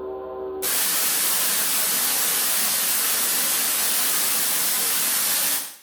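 Steady musical tones cut off about half a second in and are replaced by a loud, even hiss of television static, the off-air noise of a channel that has stopped broadcasting. The hiss fades out quickly near the end.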